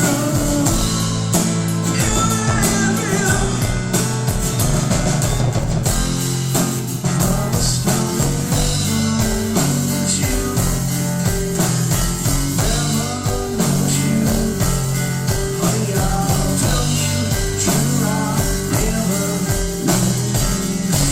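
Live rock band playing at full volume, with electric guitars, bass and drum kit keeping a steady beat.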